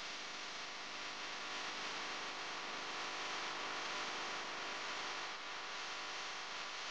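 Steady electrical hum with a hiss over it.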